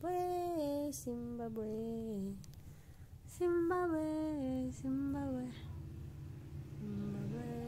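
A woman's voice singing a slow crooning tune in long held notes that slide up and down, in several short phrases with pauses between them.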